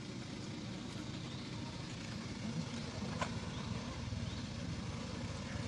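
Steady low rumble of an idling engine, with a few faint short high chirps and one sharp click about three seconds in.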